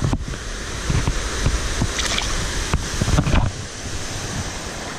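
Steady rush of creek water below a dam, with wind buffeting the microphone and a few knocks and splashes in the first three and a half seconds as a bass is let go under the water; after that the low rumble eases and only the water's hiss remains.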